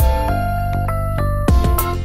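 Background music: held electronic notes over a steady bass, with a drum hit at the start and another about one and a half seconds in.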